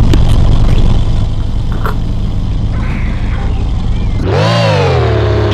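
Loud, deep rumble from a car, either its engine or a bass-heavy sound system. About four seconds in, a pitched tone with many overtones sweeps up and then slowly falls.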